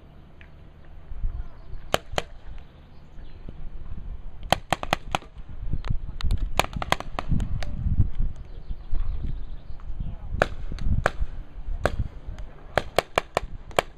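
Paintball markers firing: sharp pops in quick volleys of two to six shots, coming in bursts every second or two.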